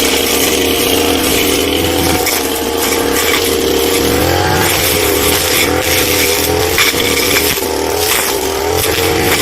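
Two-stroke brush cutter running at high revs while cutting, its pitch dipping a little and climbing back about four seconds in.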